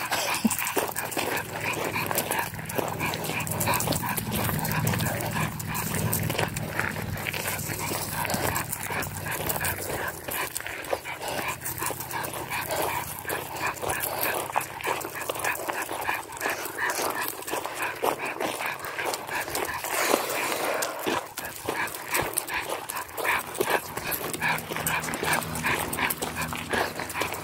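Steady crunching footsteps on a gravel road as a three-month-old Labrador retriever puppy walks on a leash with its handler, carrying a long stick in its mouth.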